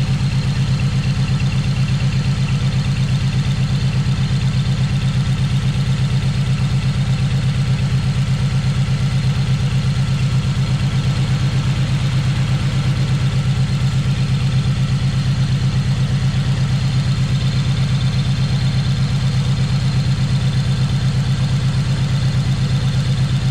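Honda Integra DC2's turbocharged K20 four-cylinder engine idling steadily with an even pulsing beat. The car has a misfire, which the mechanic suspects is in the wiring at the number 4 injector plug.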